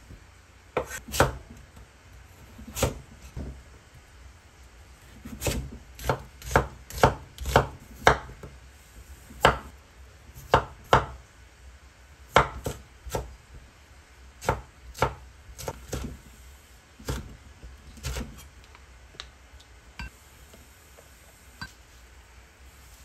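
A chef's knife cutting potatoes and radish on a wooden cutting board: single sharp chops on the board spaced a second or so apart, with a quicker run of about six chops between about 5 and 8 seconds. The chopping stops a few seconds before the end, leaving only faint clicks.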